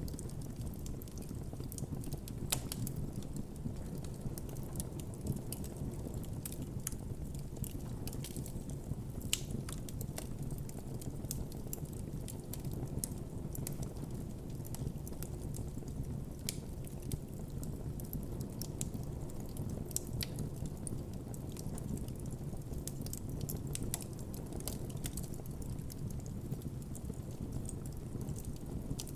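Campfire burning with a steady low rumble of flames and frequent sharp crackles and pops from the burning wood.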